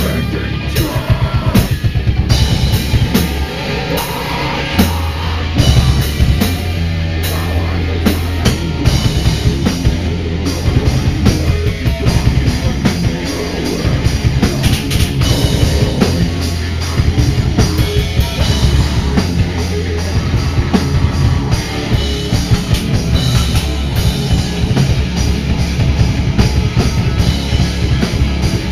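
Live hardcore metal band playing loud: electric guitar and bass over a drum kit beating out a fast, dense rhythm.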